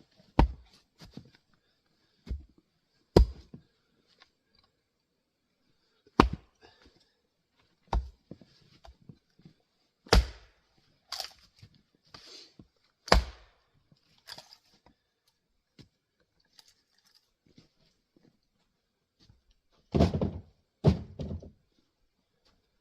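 Splitting axe striking grand fir rounds: about nine sharp, separate chops at irregular intervals of one to three seconds, then a quick run of heavier knocks near the end.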